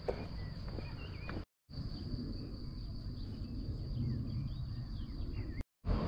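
Outdoor ambience of a steady high insect chirring with small birds chirping over it and a low rumble underneath. The sound cuts out completely twice, briefly.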